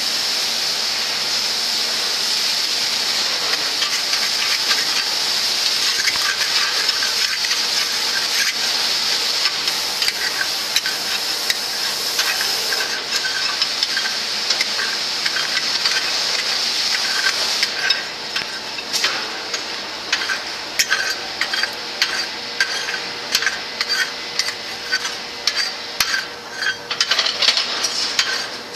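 Steady hiss with scraping and light clinking as aluminium dross is worked with steel bars in a rotating drum. A little over halfway through, the hiss drops away, leaving irregular metallic clinks and rattles, about two a second, as the dross pours down a chute into a trough.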